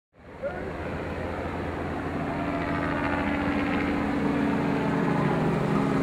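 A steady motor hum over the wash of breaking surf, fading in at the start.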